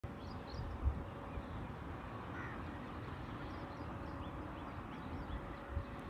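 Outdoor ambience of birds calling, with scattered short high chirps and a harsher call about halfway through, over a steady hiss. Two low bumps, about a second in and near the end.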